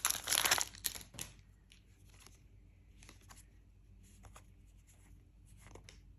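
A trading-card booster pack wrapper crinkling as it is torn open, ending within the first second, then faint, scattered swishes of cards being slid out and handled.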